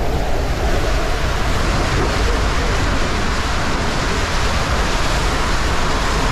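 Steady, loud rush of water and the tube raft sliding down an enclosed water slide tube, heard from on the raft.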